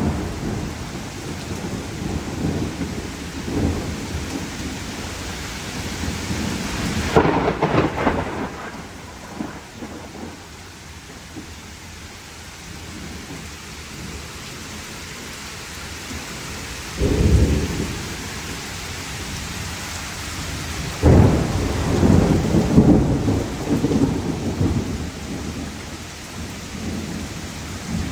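Heavy rain falling steadily through a thunderstorm, with thunder rumbling several times: about 7 seconds in, again about 17 seconds in, and a longer rolling peal from about 21 seconds.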